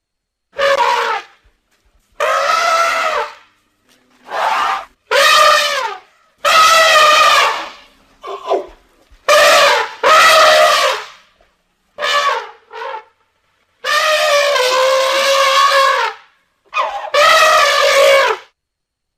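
Elephant trumpeting: about a dozen loud, brassy calls in quick succession, each half a second to two seconds long, with brief silences between. The longest call, about two seconds, comes near the end.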